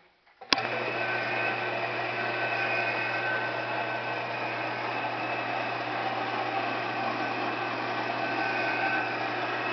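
A milling machine is switched on with a sharp click about half a second in. Its electric motor and spindle then run at a steady hum with the end mill turning freely, not yet cutting.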